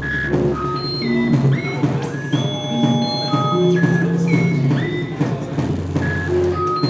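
Improvised electronic music live-coded in SuperCollider: scattered synthesized tones that swoop upward and then hold at many different pitches, over mid-range blips and a low bass tone that comes and goes.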